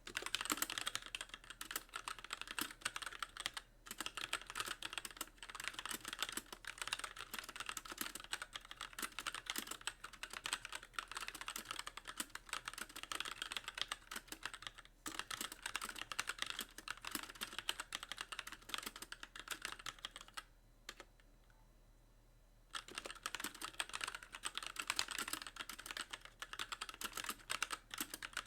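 Fast continuous typing on a Magicforce mechanical keyboard with light Gateron Clear linear switches and stock keycaps. The keys bottom out with a dense clatter, with a pause of about two seconds a little past two-thirds of the way through before the typing resumes.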